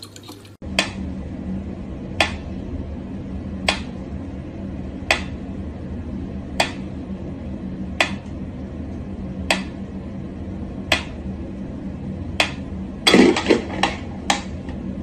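Mechanical pendulum metronome ticking at a slow tempo, one sharp click about every second and a half. Near the end there is a short cluster of louder knocks and rustling.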